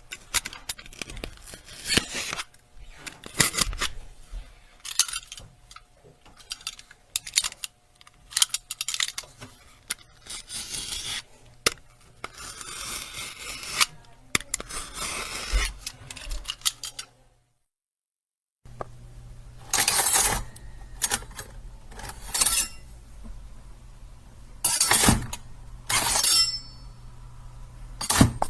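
Knife blade sound effects: a series of sharp metallic clicks and clinks with some longer scraping, a short gap of silence about two-thirds of the way in, then more clinks, a few of them ringing.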